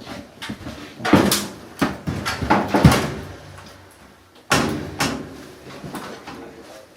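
Sheet-metal panels and parts of a GE clothes dryer being handled during disassembly: a run of separate knocks, clanks and scrapes, the loudest about a second in, near three seconds and again at about four and a half seconds.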